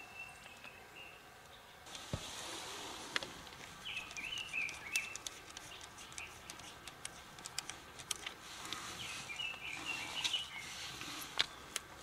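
Birds chirping in short twittering phrases over a faint steady hiss that comes in about two seconds in, with scattered small clicks.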